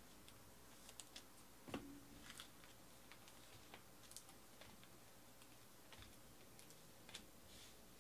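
Faint, irregular light clicks and taps, with one slightly louder tap about two seconds in.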